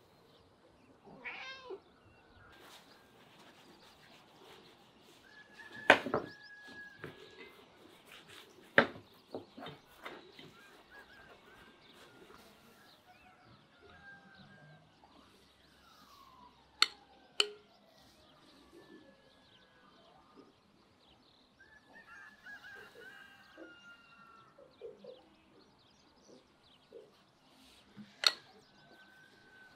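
A metal spoon spreading white sauce inside a split baguette, with a few sharp clicks and knocks at intervals. Animal calls sound in the background, one near the start like a cat's meow.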